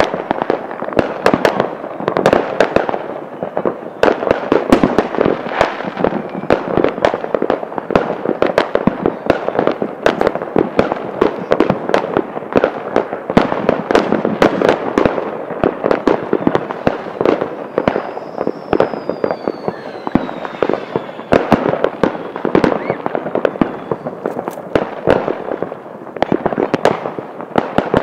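Many fireworks and firecrackers going off, sharp bangs and crackles overlapping several per second without a break. About two-thirds of the way through, a firework whistle falls in pitch.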